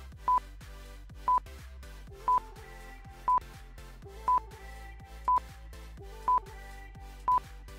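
Countdown timer beeping once a second, a short beep each time, eight in all, over soft background music.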